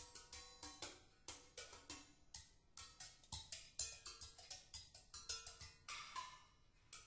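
Drums and percussion played live in loose, irregular sharp strikes, about three to four a second, many of them ringing briefly with a pitched tone, over a faint held note.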